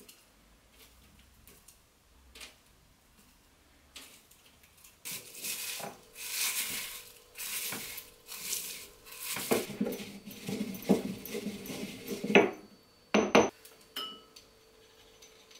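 Dried stinging nettle leaves being ground into powder with a pestle in a stone mortar: a few light clicks, then several seconds of crisp crushing and scraping strokes, and two sharp knocks near the end.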